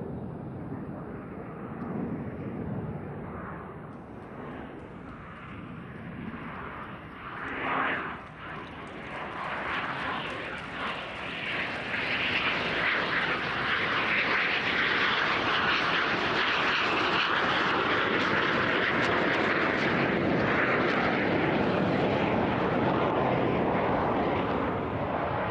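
Aermacchi MB-339 jet trainer's single turbojet engine as the solo aircraft makes a low, slow pass: a rushing jet noise that builds over the first dozen seconds and then holds loud and steady.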